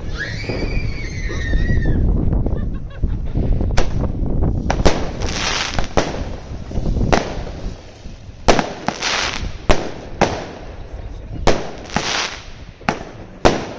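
A 16-shot 20 mm fireworks cake firing shot after shot. Each shot is a sharp bang, and several bursts are followed by about a second of crackling stars. The shots come irregularly, roughly one a second, starting about four seconds in.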